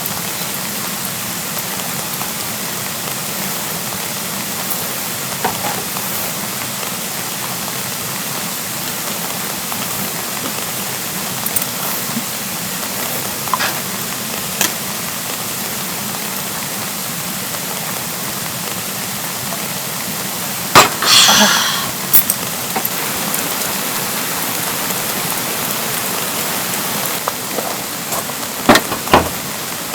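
Steady rain falling, an even hiss with scattered drip-like taps. A little over two-thirds of the way through there is a brief, louder rattling burst, and a few more sharp taps follow near the end.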